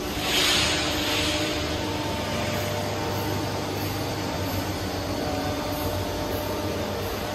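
Steady industrial machinery hum, with a short hiss that rises and fades about half a second in.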